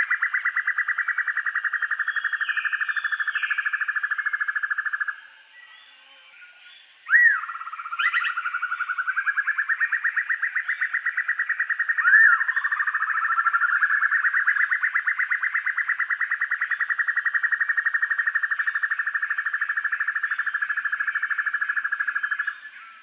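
Sempur-hujan rimba broadbill singing long rapid trills, each rising in pitch at the start and then running steady for several seconds, three in a row, with a few short sharp upward notes between them.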